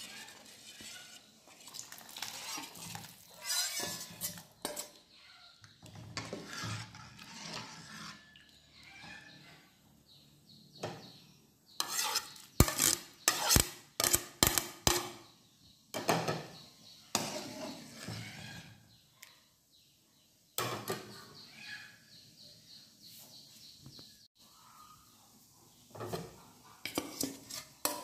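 Metal ladle scraping and clinking against a steel bowl, a plate and the rim of an aluminium pot as ingredients are ladled into a simmering curry. Partway through comes a quick run of about six sharp taps.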